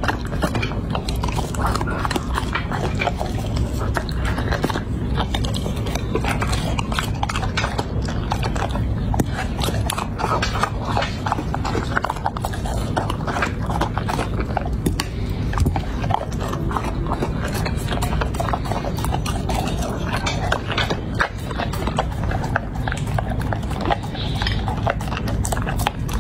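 Chocolate Labrador retriever chewing and crunching food such as raw cucumber slices from a dish, a dense run of crisp crunches and wet mouth sounds, licking the dish clean near the end.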